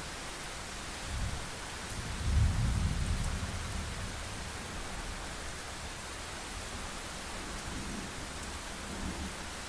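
Steady heavy rain hissing, with a roll of thunder rumbling up about two seconds in and dying away over a couple of seconds, and fainter low rumbles near the end.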